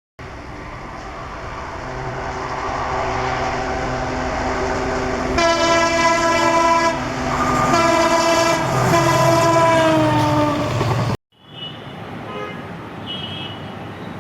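WDG-4 diesel locomotive approaching, its two-stroke EMD 16-710 engine rumble growing louder. About five seconds in its horn sounds in three blasts, and the pitch falls during the last one as the locomotive passes. The sound cuts off abruptly near the end.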